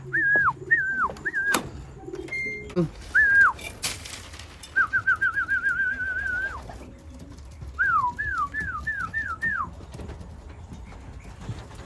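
A person whistling to call racing pigeons home to the loft. It starts with short notes that swoop downward, then a quick warbling trill, then a run of five quick notes that dip and rise.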